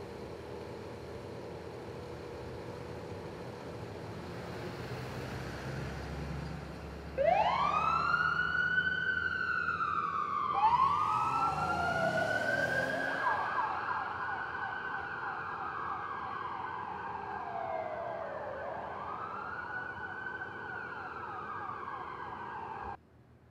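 Emergency-vehicle sirens wailing, rising and falling slowly, over steady street noise; they start about seven seconds in. A second siren joins a few seconds later, one holding a high steady tone while the other keeps wailing. The sound cuts off suddenly near the end.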